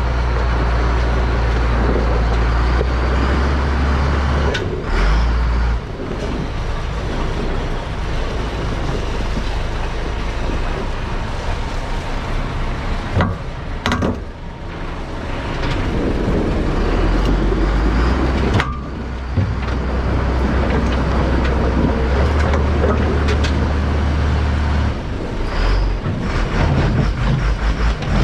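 A large vehicle engine running steadily, with a few sharp knocks.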